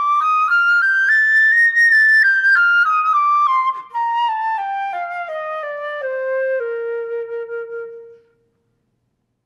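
Concert flute playing a two-octave B-flat major scale, fingered with the thumb B-flat: the last notes climb to the top B-flat, then it steps down note by note, with a short break for breath partway down, ending on a long held B-flat two octaves below. The tone stops about a second before the end.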